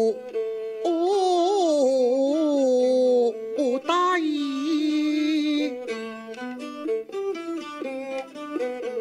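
Cantonese opera singing, a slow ornamented line with sliding pitch and vibrato that ends on a long held note, accompanied by a two-string bowed huqin fiddle and a round-bodied plucked lute. From about six seconds in, the fiddle and lute play a short instrumental phrase on their own, in separate stepped notes.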